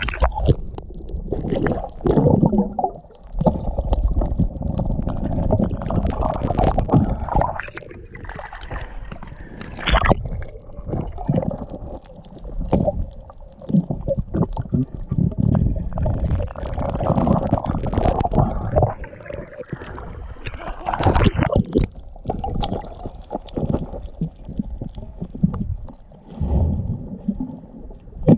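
Muffled underwater sound picked up by a camera held below the sea surface: low, shifting rumbling and gurgling of moving water, with scattered sharp knocks and bumps.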